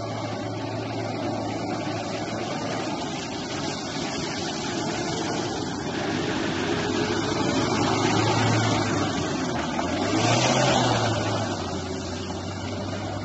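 Mitsubishi L200 pickup's engine running as it drives off-road, with the engine note rising and falling twice, about eight and ten seconds in, as it is revved.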